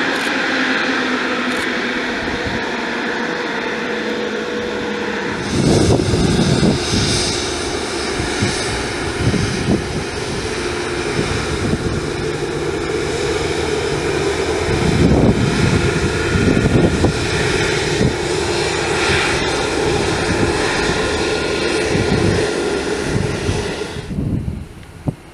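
Rolls-Royce Trent 7000 turbofans of an Airbus A330neo taxiing: a steady jet whine over a broad rumble. It jumps louder about five seconds in, with low surging rumbles, and drops away sharply near the end.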